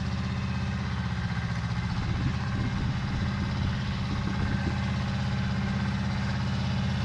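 Pasquali 425 compact tractor's 30 hp engine running steadily under load as it pulls a plough through the soil.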